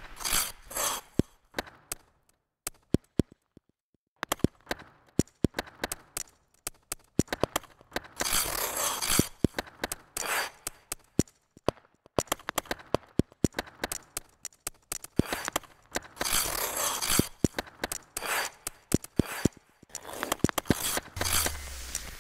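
Ice skate blades on ice: irregular sharp clicks with bursts of scraping a second or so long, and a brief near-quiet gap early on.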